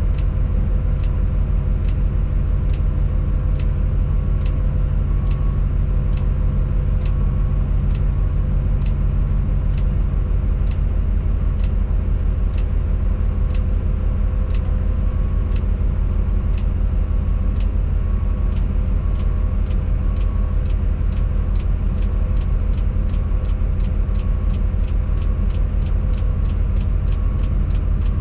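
Tadano 180G-5 crane's engine running steadily, heard from inside the operator's cab as a loud low drone with a few steady tones. A regular sharp click repeats about twice a second.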